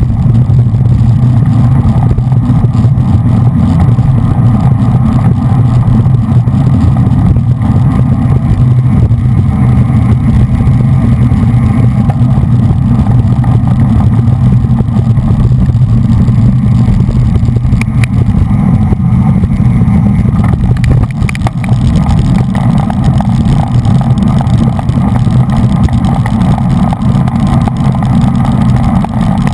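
Steady, heavy wind rumble on a GoPro's microphone as it rides with a road bicycle at racing speed in a bunch.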